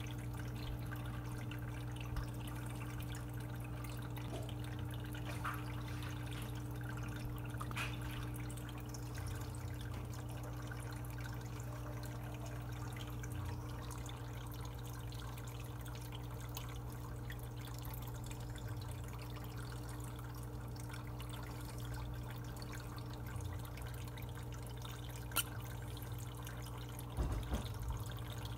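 Aquarium running: a steady low hum with water trickling and dripping. There are a few sharp clicks near the end.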